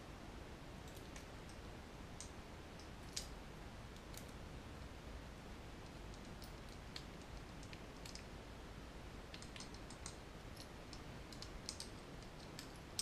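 Faint, scattered small clicks and taps from the plastic frame of a model locomotive's motor bogie being handled and fitted back together. The sharpest click comes about three seconds in, with a few more near the end.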